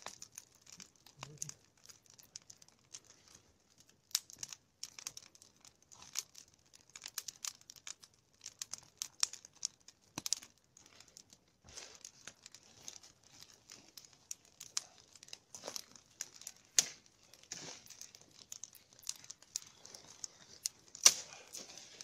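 A fire of small spruce branches burning on a log, crackling with a steady hiss and irregular sharp pops. One louder pop comes about a second before the end.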